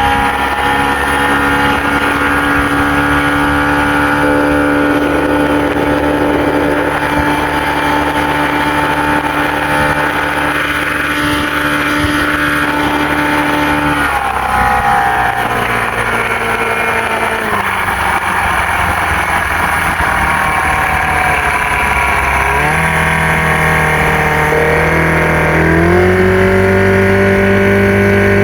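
Fishing boat's motor running steadily under way. Its pitch drops in two steps about halfway through as it is throttled back, then climbs again in two steps near the end as it is throttled up.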